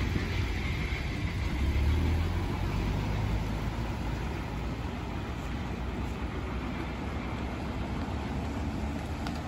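A car drives past close by, its engine and tyres loudest about two seconds in, then fading as it moves away, with more cars moving slowly in the background.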